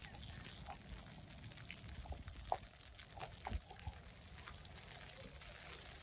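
Quiet snowy city street ambience: a low steady rumble with scattered short clicks and taps, the sharpest about two and a half seconds in.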